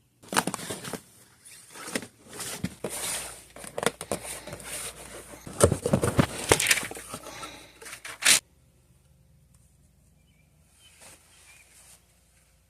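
Close rustling and scraping with many sharp clicks, as of something being handled right at the microphone; it stops abruptly about eight seconds in, followed by a brief faint rustle near the end.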